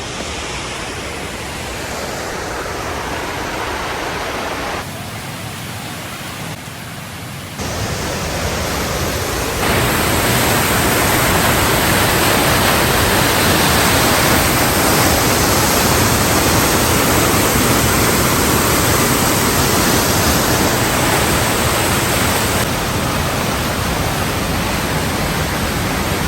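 Rushing water of a waterfall: a steady, dense rush with no distinct events. Its loudness jumps sharply several times, and it is loudest from about ten seconds in.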